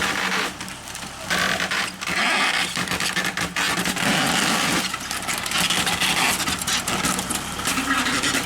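Engine of a fork-equipped loader machine running under load, with a steady hum. Irregular scraping, crackling and clattering come over it as the log and tangled fence are dragged.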